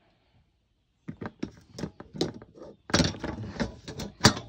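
Metal trim ring of a ceiling light fixture being picked up and handled, a quick, uneven run of clinks and knocks starting about a second in, the loudest near the end.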